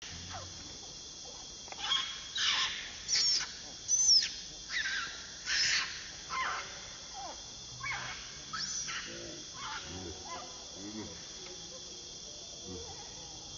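A baby macaque squealing: a run of about ten short, high-pitched calls, each sweeping in pitch, loudest about four seconds in and fading out after about nine seconds. A steady high insect drone runs underneath.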